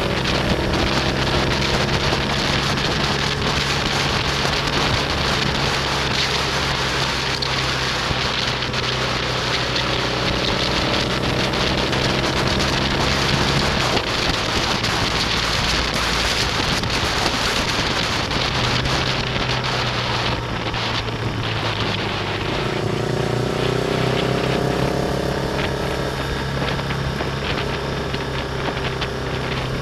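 Motorcycle engine running at road speed under heavy wind rush on the microphone, its note rising a few times as the bike pulls through the revs.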